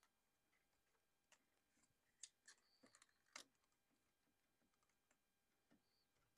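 Near silence with a few faint small clicks and taps, most between about two and three and a half seconds in: a precision screwdriver and fingertips working at the screws and logic board inside an opened MacBook Pro.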